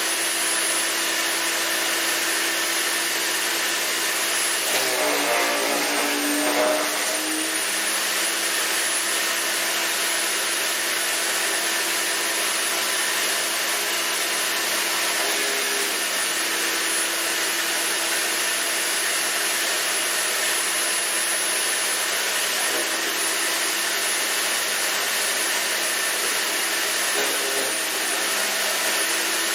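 Earthwise GS70015 electric wood chipper running, with a high, steady motor whine over a loud rush from the cutting chamber. About five seconds in, the whine sags and grinding comes in as the blades bite into a branch; then the motor picks back up.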